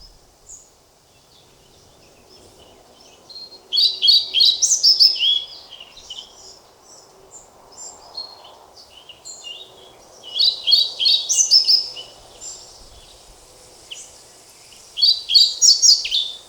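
European pied flycatcher (Ficedula hypoleuca) singing: three short phrases of quick, high, chirpy notes, several seconds apart, with a few faint single notes between them.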